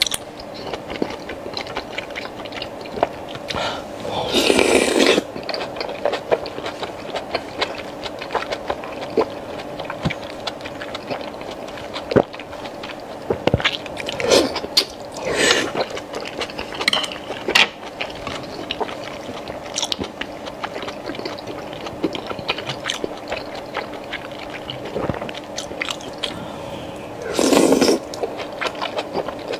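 Close-up eating sounds of braised pork intestine being bitten and chewed: many small wet clicks and smacks, with louder wet bursts about four seconds in, twice around the middle, and near the end. A faint steady hum runs underneath.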